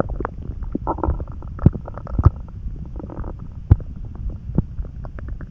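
Hungry human stomach gurgling and churning: a steady low rumble with scattered sharp pops and short bubbly gurgles, the sign of an empty stomach after a meal already digested.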